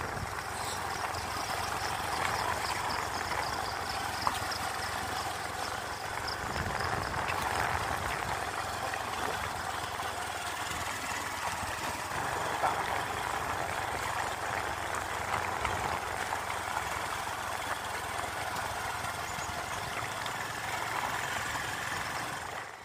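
Motorcycle engine running steadily while it is ridden, with road and wind noise.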